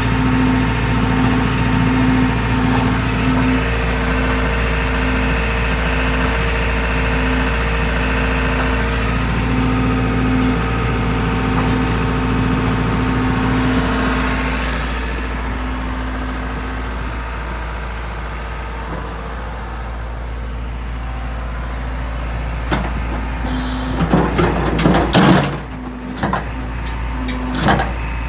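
Diesel engine of a JCB JS130LC tracked excavator running with a steady hum that eases off about halfway through; near the end, a few loud metallic clanks.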